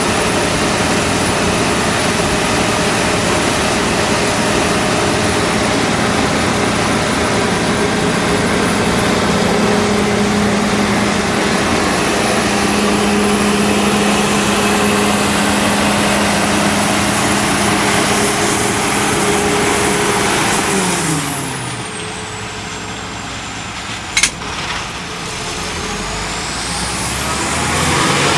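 John Deere 9770 combine running steadily with a high whine over its engine. Late on, all its tones glide down together as it slows and quiets, a single sharp click sounds, and near the end it speeds back up.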